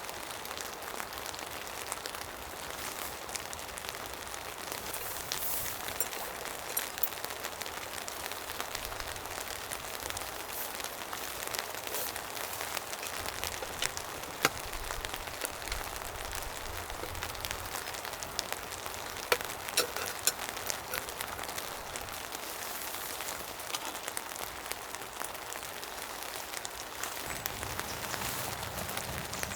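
Steady rain falling, with many separate drops ticking sharply on a surface and a few louder single drop hits.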